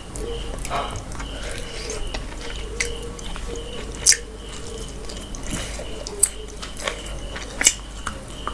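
Close-up eating sounds of spicy achari mutton with yellow rice being bitten and chewed: wet, squishy mouth sounds with a few sharp clicks, the loudest about four seconds in.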